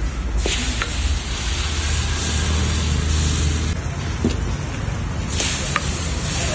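Thin rice batter sizzling on hot cast-iron pans as it is ladled on, with a few light clinks of a ladle against a steel pot. The sizzle surges about half a second in, eases around four seconds in while the batter is stirred, and surges again about five and a half seconds in as fresh batter hits a pan. A steady low rumble runs underneath.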